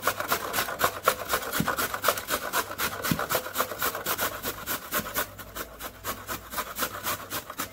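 A carrot being grated on a stainless steel box grater: quick, even rasping strokes, about three or four a second, growing quieter toward the end.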